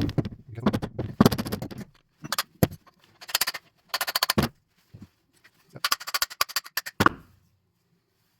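Rapid series of hammer taps from a brass-and-plastic-faced hammer driving a gudgeon pin through a diesel piston and connecting rod, in several quick bursts over about seven seconds, then stopping.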